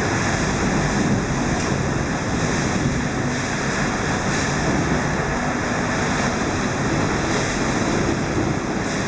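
Typhoon wind and storm surf on the seafront: a steady, loud rush of wind and breaking waves with no let-up.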